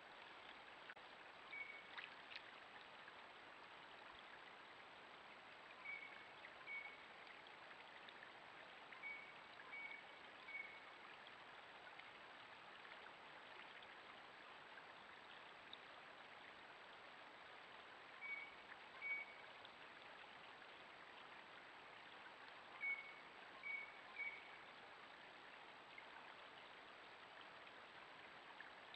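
Faint steady hiss of water trickling through a beaver dam, with short high chirps in twos and threes every few seconds.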